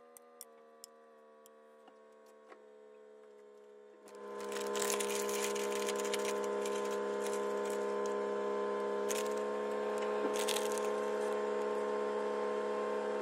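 Background music of soft held chords that change every few seconds. About four seconds in it swells much louder and fuller, with a bright hiss and a few crisp high hits.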